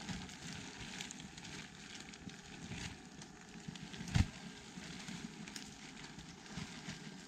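Irregular crackling and rustling, with one louder knock about four seconds in.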